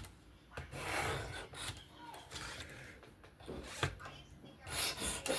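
Abrasive sharpening stone drawn along a knife edge on a fixed-angle sharpener: a few separate rasping strokes, with a short click about two-thirds of the way through.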